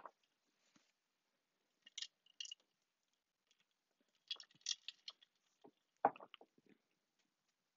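A person picks up a drinking glass and takes a drink, with faint clicks and drinking sounds. The glass is then set down with a knock about six seconds in, the loudest sound here.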